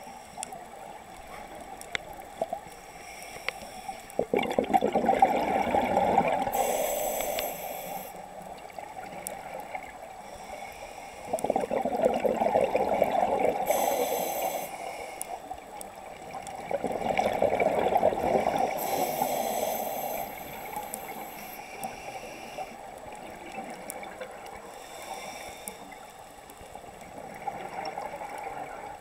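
Scuba diver's regulator exhaling: the breath leaves as a long burst of gurgling bubbles, three times several seconds apart and once more weakly near the end, each with a short hiss from the regulator.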